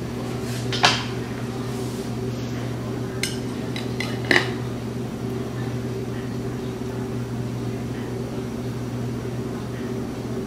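Cake server clinking a few times against a ceramic plate as a slice of layered cake is cut and lifted out. The clinks are loudest about a second in and about four seconds in, over a steady low hum.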